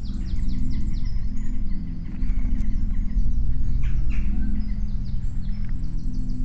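Birds singing in woodland, one repeating quick runs of high falling notes at the start and again near the end, over low sustained background music.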